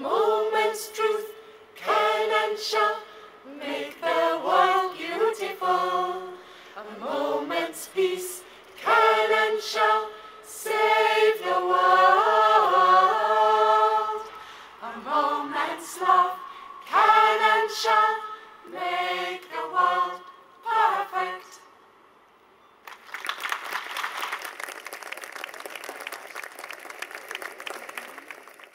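Mixed choir of men and women singing a slow song in held, pitched phrases, which ends about 21 seconds in. After a short pause, an audience applauds steadily for the last five or six seconds.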